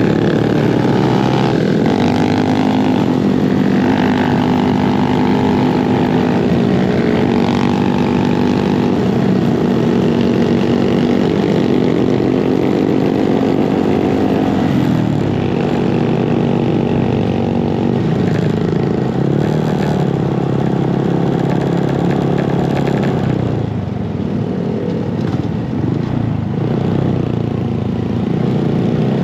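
Small single-cylinder motorcycle engine heard from on board while riding, pulling steadily with its pitch stepping at gear changes. About three-quarters of the way through it eases off and drops in pitch as the bike slows.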